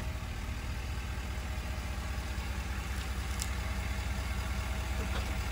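Ford F-350 Super Duty pickup's engine idling steadily while the truck creeps forward, with a faint click about three and a half seconds in.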